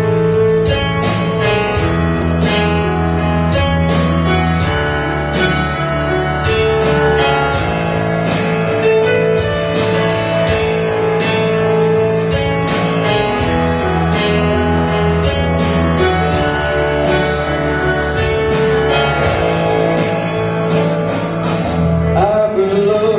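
Instrumental introduction of a worship song: guitar strumming steady chords over bass and keys, at a constant loudness.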